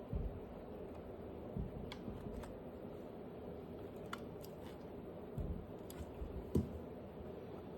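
Scattered light clicks and a few soft thumps from handling small objects, over a steady low hum.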